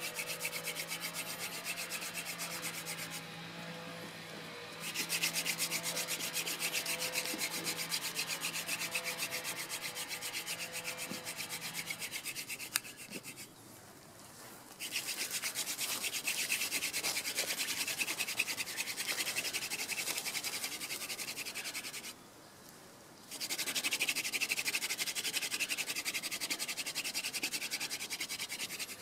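Hand drill fire by friction: a wooden spindle twirled back and forth between the palms, grinding in the notch of a wooden hearth board with a fast, rippling rubbing. It stops briefly three times. By the end the notch is smoking and full of dark wood dust, the stage just before an ember forms.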